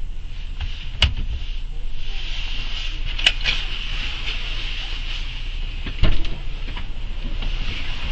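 Steady low engine rumble heard inside a stationary vehicle's cab, with a few sharp clicks and knocks, the loudest about six seconds in.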